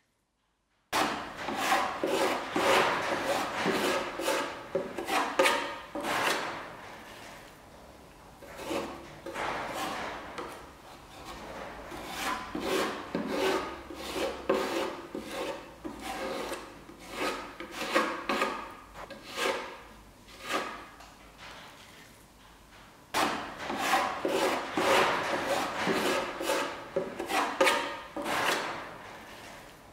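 Metal filling knife scooping wood filler from a plastic tub and scraping it across the worn wooden edges of an old desk, in many short strokes. The scraping starts about a second in and grows louder again near the end.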